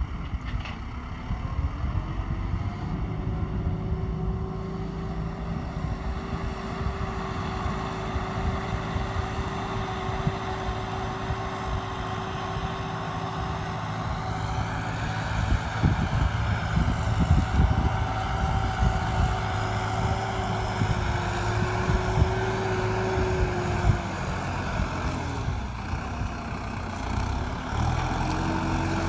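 Tractor engine running steadily while working a tractor-drawn rock picker, with a steady whine that rises in pitch about a second in and falls away about 25 s in. Irregular clattering comes through about halfway through.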